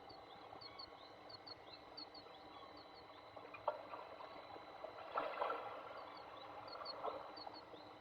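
Faint steady hiss of wind and snow at a nest box, with soft knocks and rustles about halfway through and again near the end as a falcon tears at prey, and a run of faint high chirps.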